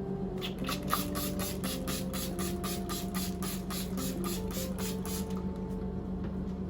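A quick, regular series of short strokes, about three to four a second, that stops about five seconds in, over soft background music.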